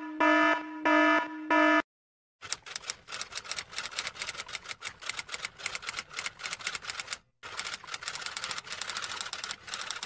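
An alarm beeping in short pulses, about two a second, stopping about two seconds in. After a short gap, a typewriter's keys clack rapidly and unevenly, with a brief pause about seven seconds in.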